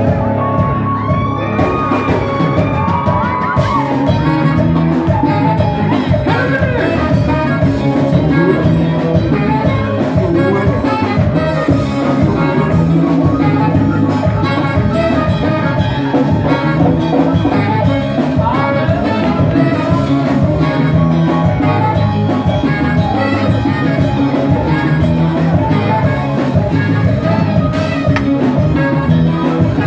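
Live Ethiopian band music: a male singer over a band with electric guitar, saxophones and keyboard. He holds one long note a couple of seconds in.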